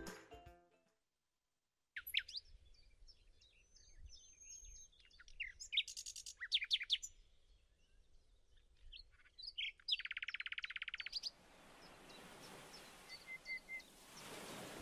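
Faint birds chirping and whistling in short calls, starting about two seconds in, with one rapid trill about ten seconds in. A soft rushing hiss builds under them in the last few seconds.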